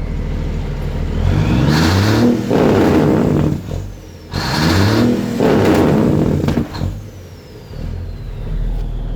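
Peterbilt 359's diesel truck engine idling, then revved up hard twice, each time winding back down to idle, blowing carbon out of the exhaust stacks.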